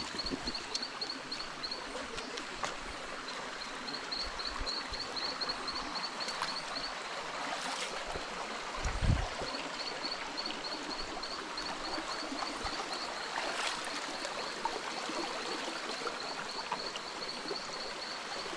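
Stream water running steadily over rocks. A fast, evenly repeated high-pitched chirping runs over it most of the time, breaking off for a couple of seconds near the middle, and there is a single low thump about nine seconds in.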